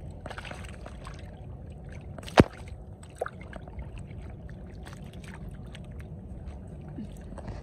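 Shallow muddy water splashing and sloshing as hands grope through it and grab at thrashing catfish. Small wet clicks run throughout, with one sharp, loud slap about two and a half seconds in and a smaller one a moment later.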